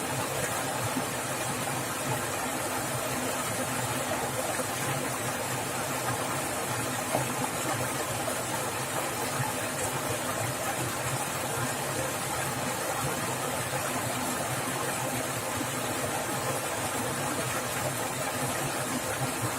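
Fast-flowing stream water rushing and splashing, a steady, even noise.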